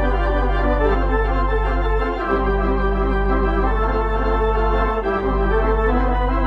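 Organ music: held low bass notes that shift about every three seconds beneath a fast-moving melody.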